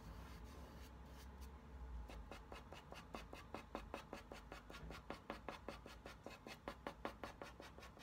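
Dry pastel stick scratching quick short strokes on paper, hatching little marks. The strokes are faint and come several a second from about two seconds in.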